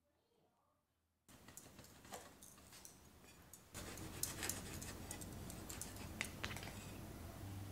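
Santoku knife slicing raw fish fillet on a cutting board: faint, scattered clicks and taps as the blade meets the board, over a low room hum. The sound starts about a second in, after near silence.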